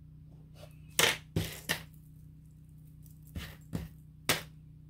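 Costume jewelry being handled and set down on a hard surface: about six sharp metal clicks and clinks in two clusters, the loudest about a second in.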